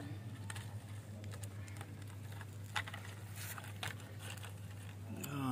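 A kitten eating from a clear plastic food tub: scattered soft clicks and taps of chewing and of the tub being nudged, over a steady low hum.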